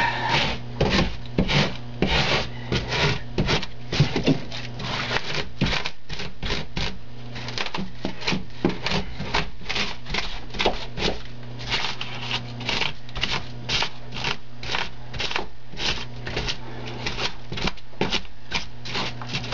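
Extruded polystyrene foam board being carved and gouged by hand: a rapid series of short scratchy scraping strokes, about two or three a second, over a steady low hum.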